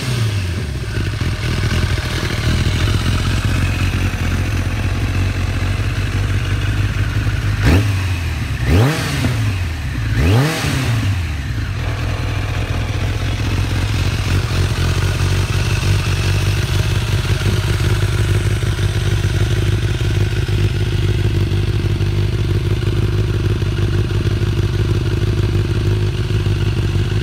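A motor vehicle engine running steadily, with a few short swells in pitch in the first twelve seconds.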